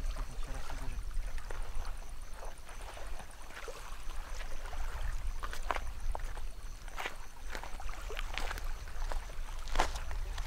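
Water splashing and sloshing at the edge of a lake shore, in short irregular bursts, with scattered sharp clicks.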